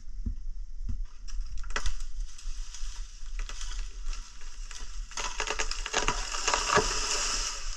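Dry brush and dead twigs crunching and snapping underfoot, in irregular crackles that grow into a dense run of crackling about five seconds in.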